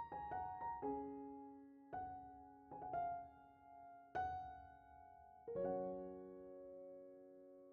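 Background piano music: a slow melody of struck notes and chords, each dying away, with a chord near the end left ringing and fading.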